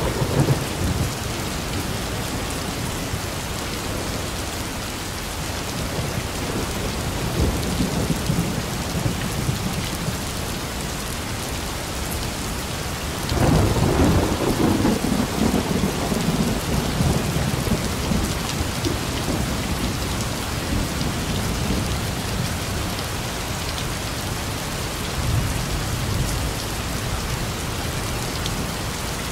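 Heavy rain falling steadily, with thunder rumbling over it: one roll fading just after the start, a louder rumble about halfway through that dies away over several seconds, and a fainter one near the end.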